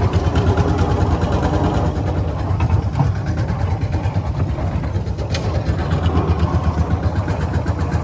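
An engine running steadily with a low, even rumble.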